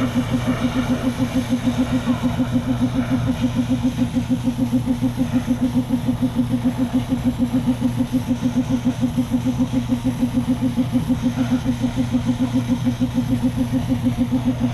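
An engine running steadily at idle, with an even pulsing beat several times a second that does not change.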